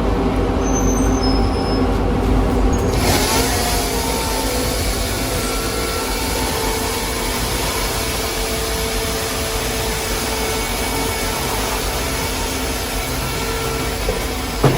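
A firewood processor's engine running steadily under load. About three seconds in the sound changes abruptly to a brighter, hissier mix with steady tones.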